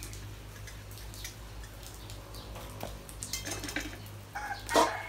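Husky puppies scuffling on a concrete floor by steel food bowls: scattered light clicks and metallic clinks, then a short high yelp near the end.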